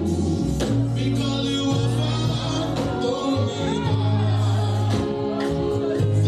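Worship music from a band: a sustained bass line, drum hits and singing.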